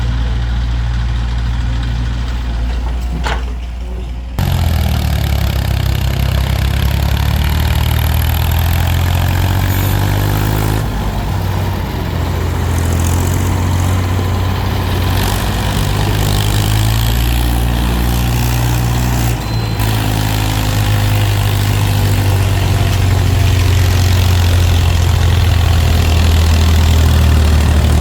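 Heavy vehicle engine running steadily with a low, even note, stepping up suddenly to a louder, harsher sound about four seconds in.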